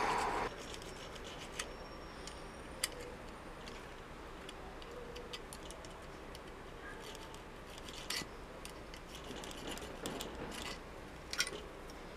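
Small steel hand tools clicking and scraping on the lock plate of an antique hammer shotgun, with a handful of short sharp metallic ticks scattered over a faint background, the loudest near the end.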